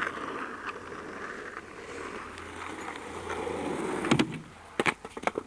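Skateboard wheels rolling over asphalt with a steady rumble, then one loud clack about four seconds in and a quick run of sharp clacks near the end as the board knocks against the pavement.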